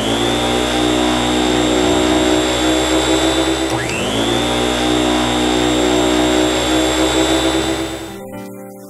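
Upright vacuum cleaner motor switching on, its whine rising quickly and then holding steady. About four seconds in it spins up again with a second rising whine, and it cuts off near the end.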